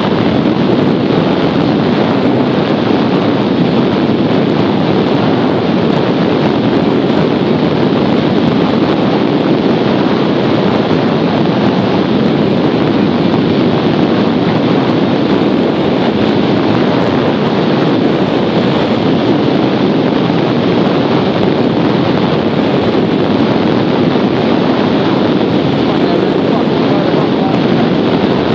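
Loud, steady rush of airflow buffeting the microphone of a camera on a hang glider in flight.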